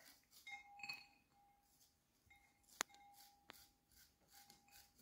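Faint scraping of a chef's knife cutting kernels off an ear of corn over a ceramic plate, with two sharp clicks of the blade on the plate near the middle, a little under a second apart.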